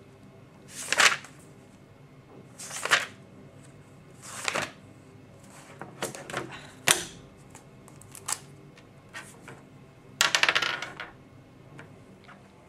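Glossy magazine pages turned by hand: three swishing page turns about two seconds apart, then scattered small taps and clicks, and a longer crackling rustle of paper about ten seconds in.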